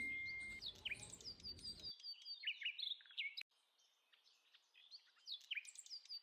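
Rapid high bird-like chirping and twittering, a quick run of repeated glides. It cuts off abruptly about three and a half seconds in and starts again about a second later.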